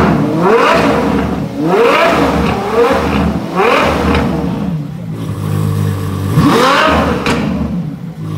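Ferrari F12's 6.3-litre V12 revved while stationary: about five quick throttle blips, each a sharp rise and fall in pitch over the idle. The longest and highest is about six and a half seconds in.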